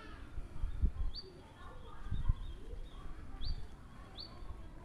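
Small bird chirping three times, short quick rising notes spaced a second or two apart, over a quiet outdoor background. Two low muffled thumps, the loudest sounds, come about a second and two seconds in.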